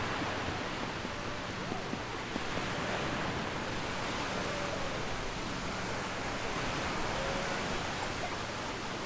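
Steady wash of small surf on a sandy beach, an even rushing noise, with faint distant voices now and then.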